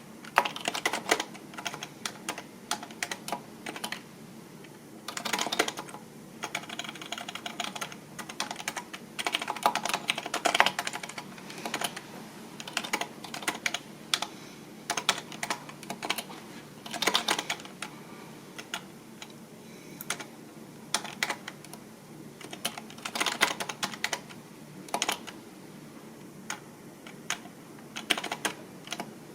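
Typing on a computer keyboard: fast runs of key clicks in bursts, with sparser single keystrokes in the pauses between.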